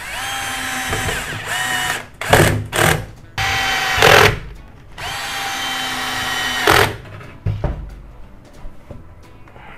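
Cordless drill-driver running in about five separate bursts, each spinning up quickly to a steady whine, driving screws.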